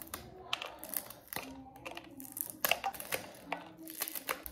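Green chillies being cut, a string of irregular sharp clicks from the blade, about two or three a second.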